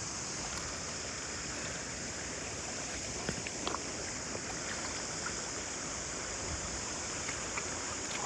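Steady rush of flowing stream water, with a constant high hiss and a few faint clicks.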